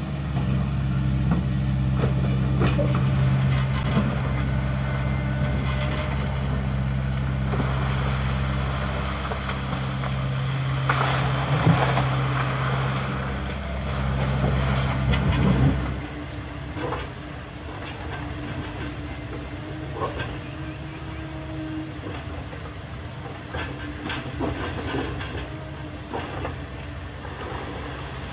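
CAT 307E mini excavator's diesel engine running steadily while the bucket works through water and rock, with splashing and water pouring from the bucket. The engine sound drops lower about halfway through, with scattered knocks of stone.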